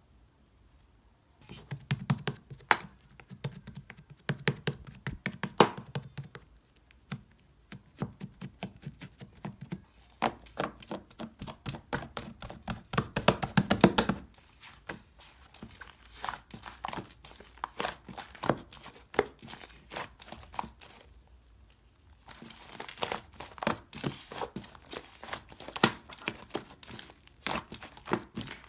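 Slime being worked by hand, pressed, folded and pulled, making dense sticky clicks and crackling pops. It grows sparser and quieter from about halfway in, then picks up again near the end.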